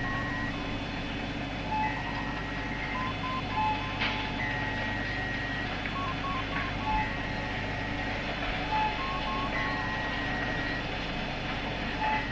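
Sci-fi style background track: a steady low hum and hiss with electronic beeps and bleeps at a few pitches, repeating in a pattern about every two and a half seconds, like a computer console.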